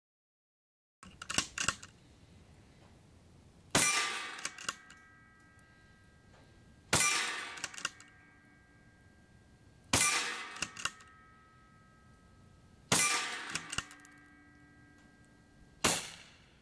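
Five shots from a .25-calibre Daystate Delta Wolf PCP air rifle, about three seconds apart, each a sharp crack followed by a short metallic ring.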